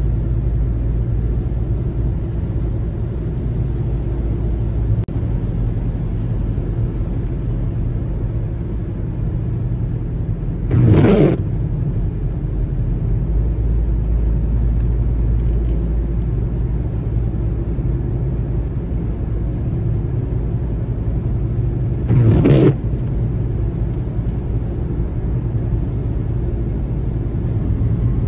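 Steady low rumble of a car driving, heard from inside the cabin: engine and tyre noise on wet pavement. Two brief, louder swishes break in, about eleven seconds apart.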